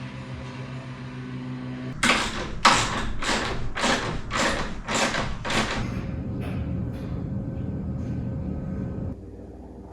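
A run of about eight evenly spaced thuds, roughly two a second, over a steady hum. The thuds start about two seconds in and fade out after about six seconds.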